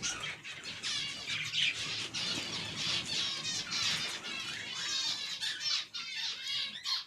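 A colony of pet finches chirping and calling, many short overlapping high chirps without a break; the birds are unsettled by their nests being cleaned out.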